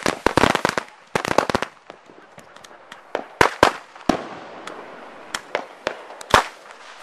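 Bottle rockets firing off a hwacha-style multi-rocket launcher: a rapid string of sharp pops with hissing launches, thickest in the first two seconds. After that come a few scattered pops and another hissing rush about four seconds in.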